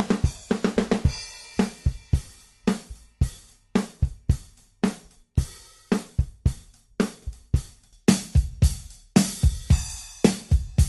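Drum kit played solo: a quick fill, then a steady beat of kick, snare and hi-hat, with cymbals coming in more brightly about eight seconds in. The kit is tuned for a deep kick and vintage-style toms, and the snare is a 14-inch Ludwig Breakbeats damped with a towel.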